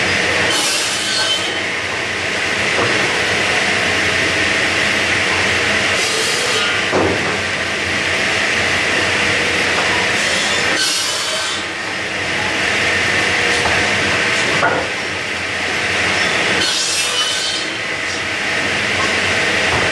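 Large power saw running steadily while it cuts through lumber four times, each cut a high-pitched burst of about a second, roughly five seconds apart.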